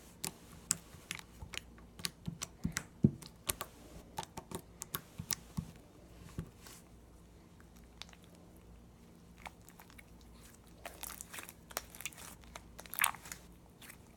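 Jiggly slime being squished and poked by hand, giving a run of small sharp clicks and pops that thin out in the middle and pick up again near the end.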